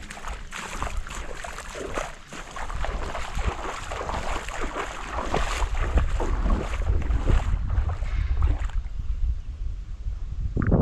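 Seawater washing and splashing along the shore, building up after a couple of seconds and fading out near the end, with wind rumbling on the microphone.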